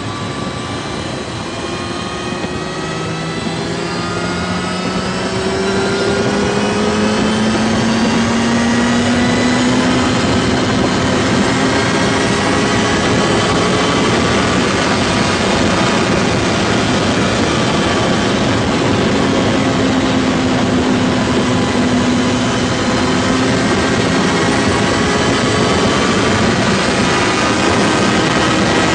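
Sports motorcycle engine pulling hard at very high speed, its note rising slowly as the bike accelerates from about 70 to about 150 mph, under a heavy rush of wind noise.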